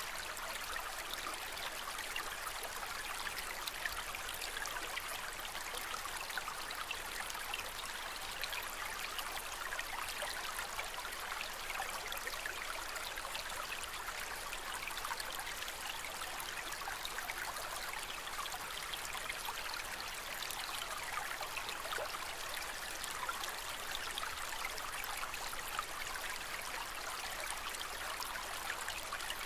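Aquarium water trickling steadily, a continuous splashing hiss dotted with many tiny drips and pops.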